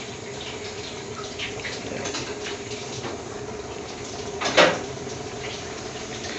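Gas-fired tandoor burning with a steady hiss, with faint crackles from the paneer tikka cooking inside. One sharp knock about four and a half seconds in.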